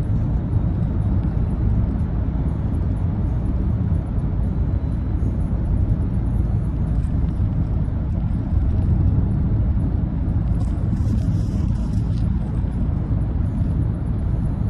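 Steady low road and engine rumble of a moving car, heard from inside the cabin while driving through a tunnel.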